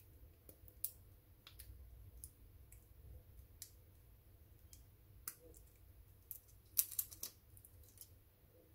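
Faint, scattered small clicks and taps from handling a wireless mouse and its AA battery, with a cluster of louder clicks about seven seconds in.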